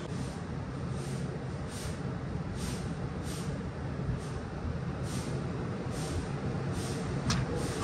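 A steady low rumble, with a soft hiss that swells and fades roughly once a second, and a single sharp click near the end.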